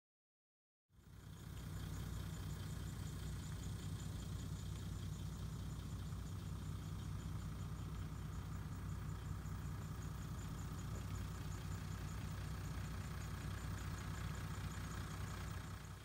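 A car's engine running steadily with road noise, heard from inside the cabin while driving, cutting in suddenly about a second in.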